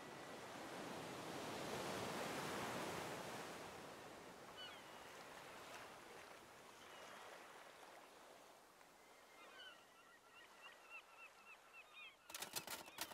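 A wave rushing in and fading away, then a bird calling over and over in short quick notes, with a few sharp clicks near the end.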